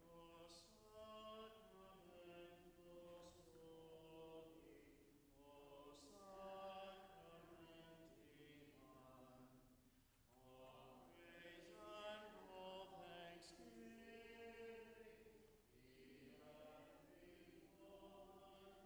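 Quiet, slow sacred singing: voices chant or sing a hymn in long held notes, in four phrases with short breaks between them.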